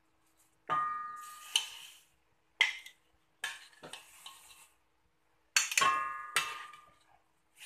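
Floured fish pieces dropped one at a time into hot oil in a wok, each setting off a burst of sizzling that fades over about a second, about five in all. Two of the bursts open with a short metallic clink.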